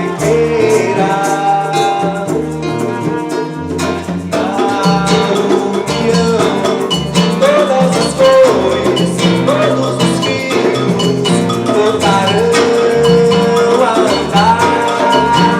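Live band playing an instrumental passage: a melodic lead holds and slides between notes over a steady percussion rhythm and a repeating bass line.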